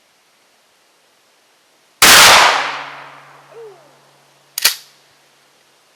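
A single loud 12-gauge shotgun slug shot from a Remington 870 pump shotgun, with a long echoing tail that fades over about two seconds. About two and a half seconds later comes a short, sharp clack, which fits the pump action being worked to eject the spent shell.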